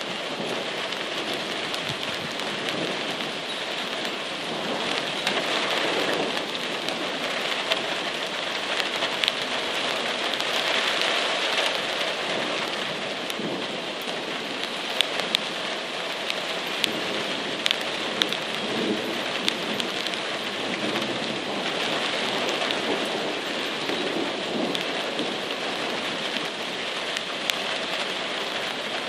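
Heavy rain falling steadily in a thunderstorm, with scattered sharp ticks of drops hitting close by.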